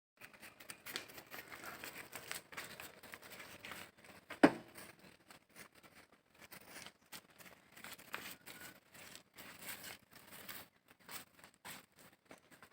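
Cattle grazing close by, tearing and cropping grass in irregular crunchy rips and rustles, with one sharp knock about four and a half seconds in.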